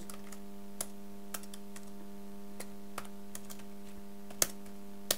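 A few scattered key presses on a computer keyboard, one at a time with gaps between, the loudest near the end, over a steady low electrical hum.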